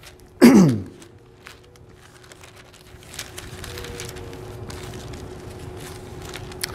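Bible pages being turned and handled on a pulpit: soft, irregular paper rustling from about three seconds in. A man's short vocal sound with falling pitch comes about half a second in, and a faint steady hum runs beneath.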